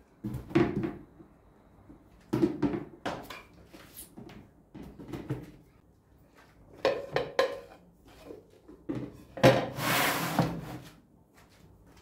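Plastic food-storage containers and kitchenware being handled and set down on a table: a series of knocks and clicks, with a louder scraping rustle lasting about a second near three-quarters of the way through.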